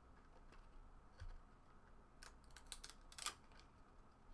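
Faint, sharp clicks and snaps of 1996-97 Skybox Premium basketball cards being handled and flipped through one at a time, a few scattered clicks with a cluster in the second half.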